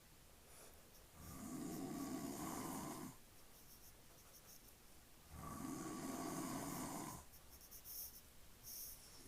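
A man snoring in his sleep: two long snores, each about two seconds, about four seconds apart.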